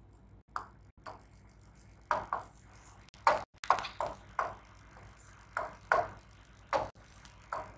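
Stylus tapping and stroking on the glass of an interactive display while handwriting: a dozen or so short, irregular taps and scrapes.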